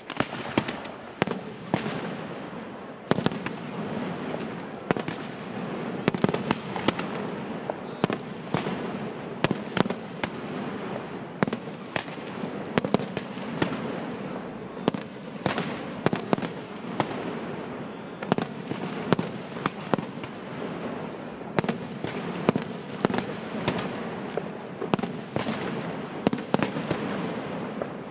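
Fireworks display: aerial shells launching and bursting in a rapid, irregular series of sharp bangs over a steady wash of noise.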